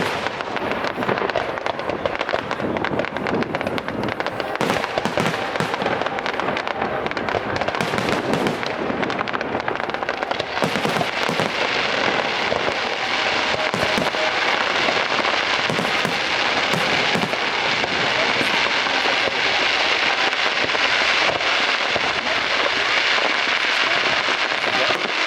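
Aerial fireworks display: a dense run of bangs and crackles. About ten seconds in, it thickens into a continuous crackling.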